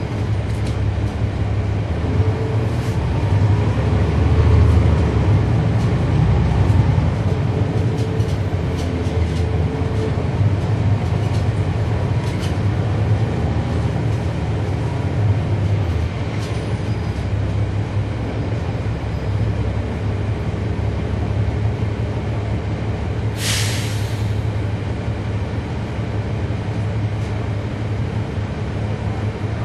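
Cummins ISL9 diesel engine of a NABI 40-SFW transit bus running steadily, heard from inside the bus, a little louder for a few seconds near the start. About 23 seconds in, a short hiss of compressed air, typical of the air brakes.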